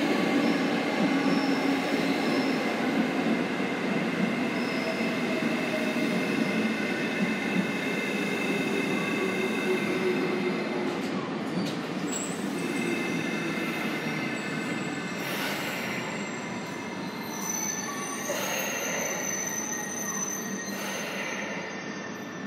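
E653 series electric train pulling slowly into a station platform and slowing to a stop, with a steady rumble and high, steady squealing tones from the wheels and brakes. The sound fades gradually as it slows, and a few short hisses come near the end.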